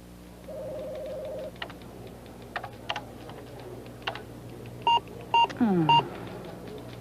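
Computer keyboard keys clicking, with a steady buzzing tone about half a second in and three sharp electronic beeps near the end, a falling tone sliding down among them.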